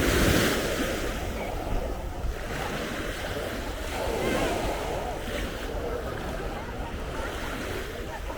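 Sea waves washing onto the beach, swelling right at the start and again about four seconds in, with wind buffeting the microphone.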